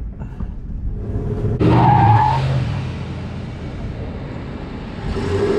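Ford F-150 pickup's 5.4 V8 launching hard, the engine revving and the tires skidding on asphalt, starting suddenly about a second and a half in and then easing off.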